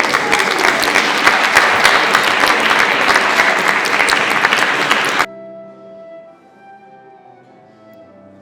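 Audience clapping at the end of a carol, loud and dense, cutting off suddenly about five seconds in. Soft instrumental music with long held notes follows.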